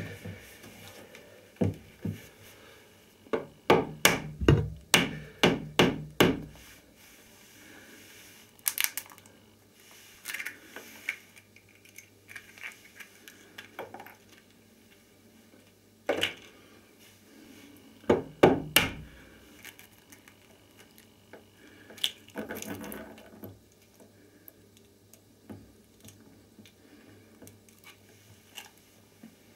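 Sharp knocks and taps against a hard bathtub surface. There is a quick run of about eight knocks a few seconds in, then scattered pairs and clusters of knocks past the middle.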